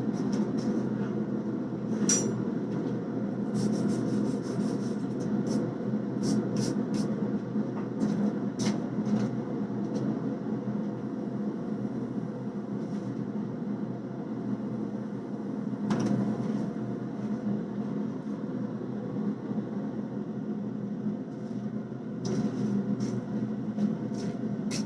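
Blacksmith's forge running with a steady rushing noise while the billet reheats, with scattered light clicks and knocks of metal tools, the sharpest about two seconds in and again near the middle.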